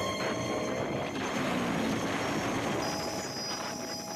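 Motorcycle running on the move, its engine under a steady rush of wind and road noise.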